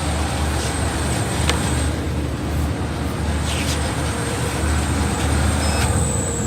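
Folding-box adhesive-tape applying machine running: a steady low motor hum with a faint high whine, and a single click about a second and a half in.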